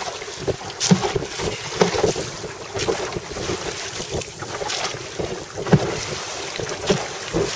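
Wind buffeting the microphone over open sea, with water splashing against the hull of a wooden Hankins lifeguard rowboat under way. Short louder knocks and splashes come about once a second.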